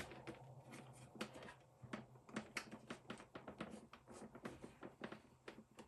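Faint, irregular plastic clicks and taps, a few a second, from hands handling and fiddling with the plastic dirty-water tank and lid of a Bissell Little Green Pro carpet extractor.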